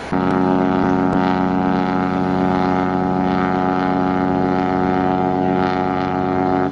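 Horn of the cruise ship Allure of the Seas: one long, steady blast of about six and a half seconds that starts suddenly and cuts off sharply.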